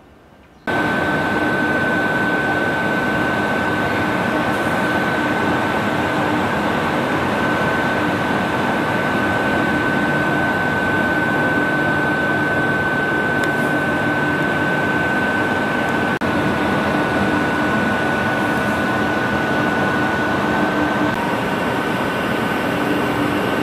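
FS E656 electric locomotive running at a standstill: a loud, steady rush from its cooling blowers with a constant high whine on top, cutting in abruptly about a second in.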